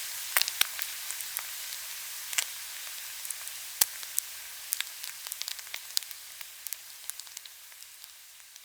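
Food frying in a hot pan: a steady high sizzle with scattered sharp pops and crackles, slowly fading out toward the end.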